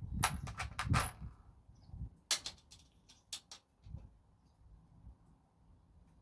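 Two quick runs of sharp clicks and clinks, about five in each, the first near the start and the second about two seconds later, over low bumps of things being handled.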